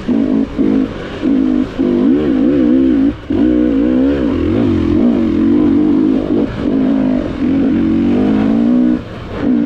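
GasGas enduro motorcycle engine heard from the rider's seat, revving up and down as the throttle is worked, and dropping off briefly several times when the throttle is shut.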